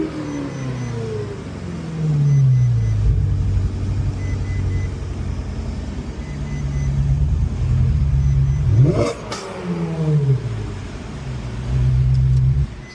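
Ferrari 458 Italia's 4.5-litre naturally aspirated V8 revved while stationary: repeated blips with the revs falling away between them, one sharp climb to high revs a little past the middle, and a held rev near the end that cuts off suddenly. The engine is being checked for a misfire that the mechanics trace to a burnt ignition coil.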